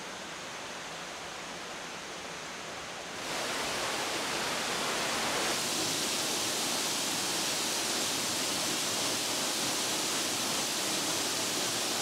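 Waterfall: steady rushing of falling water, which steps louder about three seconds in and again a little after five seconds.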